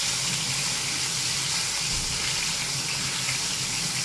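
Beef schnitzels sizzling steadily in hot oil in a grill pan over high heat, with a low steady hum underneath.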